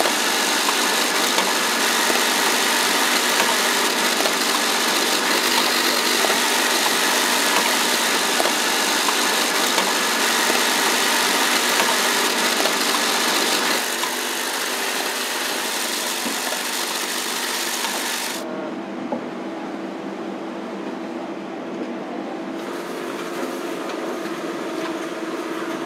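Banknote processing and packaging machinery running, with a dense rasping rush of notes feeding through rollers. About 18 seconds in it gives way to a lower, steadier machine hum.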